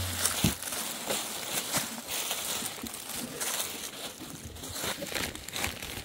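Woven plastic sacks crinkling and rustling as they are carried, with irregular crunching steps on stony ground and a few low bumps of handling.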